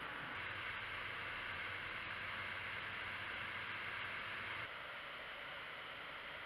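Steady background hiss with no distinct events, dropping a little quieter about four and a half seconds in.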